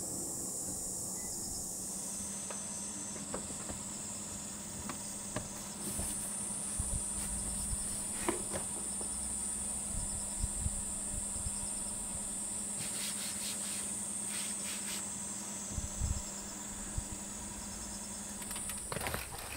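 Insects chirring steadily in a high pitch, with a few light knocks here and there.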